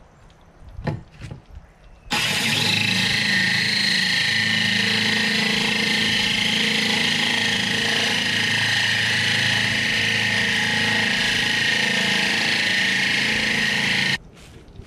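Cordless drill running steadily, its hole-saw bit grinding through water-flooded aquarium glass. It starts about two seconds in and stops abruptly near the end.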